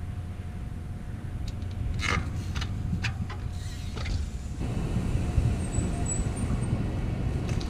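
Mountain bike riding: a steady low rumble of tyres and wind, with a few sharp knocks and clicks between about two and four seconds in.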